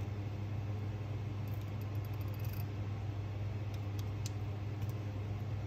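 A steady low background hum, with a few faint paper rustles and light ticks from a sticker being handled and lined up on a planner page, about one and a half seconds in and again around four seconds in.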